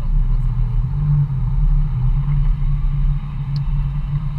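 Steady engine and road rumble of a moving car, heard from inside its cabin, with one short click about three and a half seconds in.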